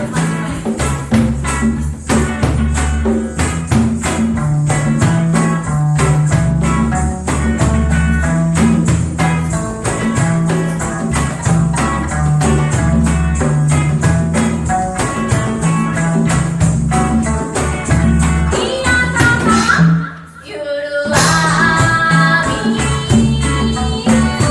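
Live reggae band playing, with a steady bass line under even percussion strokes and a melody above. About twenty seconds in the band stops dead for about a second, then comes back in.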